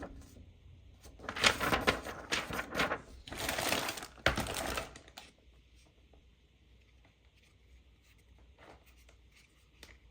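Toy packaging being handled and opened, with crinkling plastic and rapid clicks for the first few seconds, then only faint small ticks.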